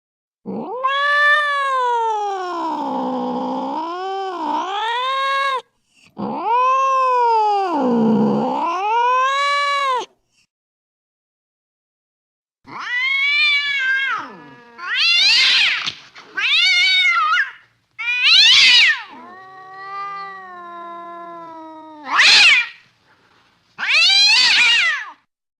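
Domestic cat caterwauling: two long, wavering yowls that dip and rise in pitch. After a couple of seconds of silence comes a string of about six shorter, higher-pitched yowls and meows.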